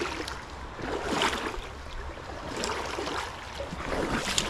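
Shallow river running over stones: a steady rush of water, with a few louder splashes now and then.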